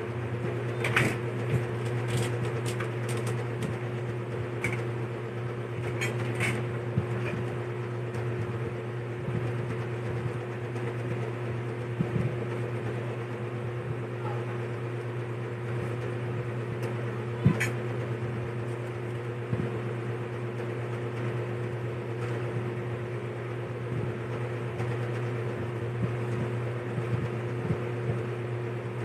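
A steady mechanical hum runs throughout. Over it come scattered sharp clicks and taps, several in the first few seconds and a strong one about halfway through, from eating with utensils.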